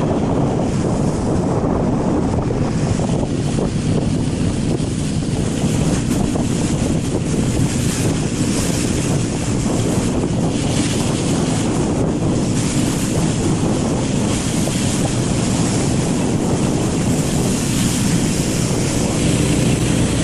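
Unseen towing vehicle running steadily, most likely a snowmobile, as plastic sleds slide over the snow behind it, with wind buffeting the microphone and a hiss from the snow.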